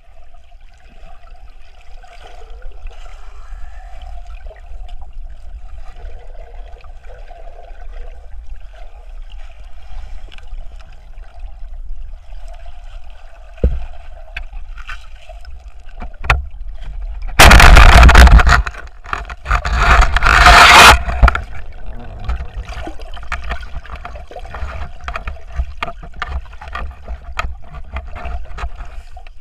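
Muffled underwater sound through a waterproof camera: a low steady rumble with a faint steady hum and a few sharp knocks, then a loud noisy rush of water about 17 seconds in that lasts some three seconds.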